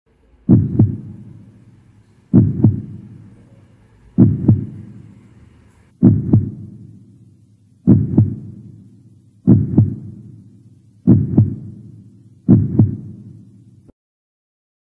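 A heartbeat sound effect: eight slow double thumps (lub-dub), each pair fading out, coming slightly faster toward the end, then cutting off suddenly.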